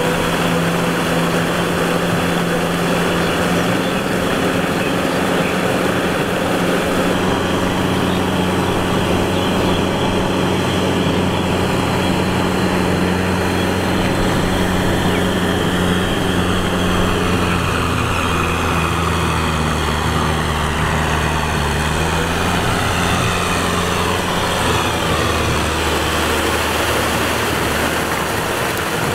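Diesel farm tractor engine running steadily under load while its rear rotavator churns through a flooded, muddy rice paddy. The engine note shifts in pitch a few times.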